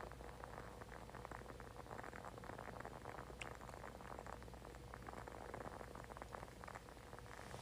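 Faint, continuous crackling of a burning candle: many small irregular clicks, with a faint steady hum underneath.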